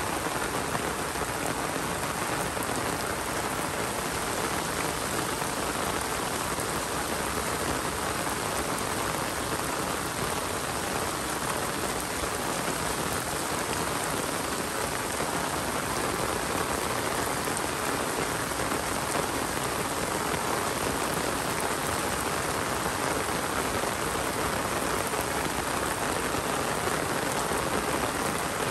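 Rain falling steadily, a continuous even hiss.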